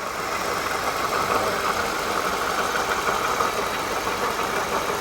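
2013 Toyota Sienna engine running with a steady rough noise from a failing water pump and idler pulley.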